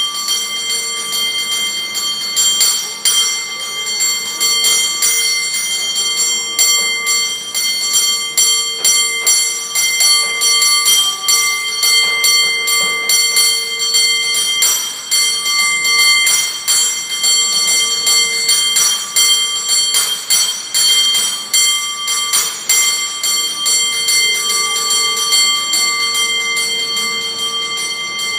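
San Francisco cable car bell rung by hand in a fast rhythmic pattern, several strikes a second. The ring sustains between the strikes, so they run together into continuous clanging.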